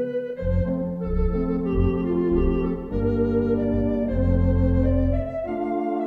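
Theatre organ playing a silent-film accompaniment: sustained chords changing about once a second, with deep bass notes coming in just after the start and dropping out near the end.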